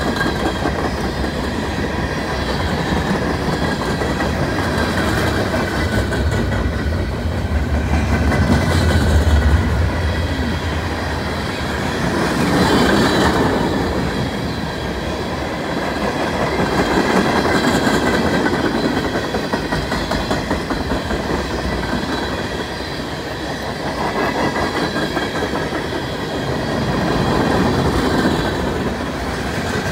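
A freight train's cars rolling past: the steady rumble and clatter of steel wheels on the rails, swelling and fading every few seconds as the cars go by.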